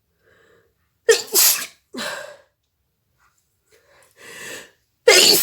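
A woman sneezing twice: a sudden loud burst about a second in, followed by a smaller one, then a breath drawn in that builds into a second loud sneeze at the very end.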